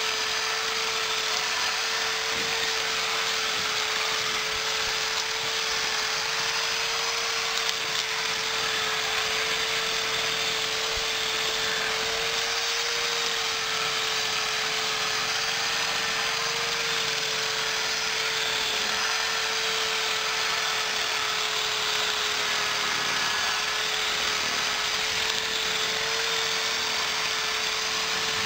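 Corded electric drill running continuously at one steady speed, a high even whine over a hiss, as it spins an improvised grass-cutting attachment held down in short lawn grass.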